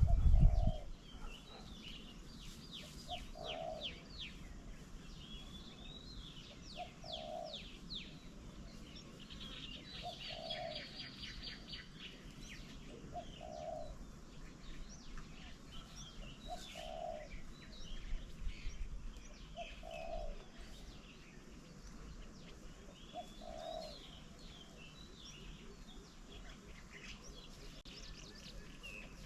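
Birdsong: a dove cooing one short low note about every three seconds, over chirps, trills and quick sweeping calls of smaller birds. A few low thumps at the very start.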